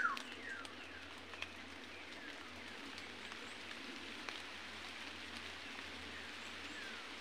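Forest background hiss with a few short bird calls that fall in pitch, the loudest right at the start and fainter ones later, plus a couple of light clicks.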